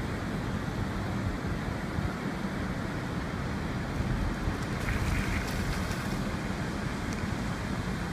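Steady low rumble of a car driving, road and wind noise with the sound of the surf blended in. A short rattle comes about five seconds in.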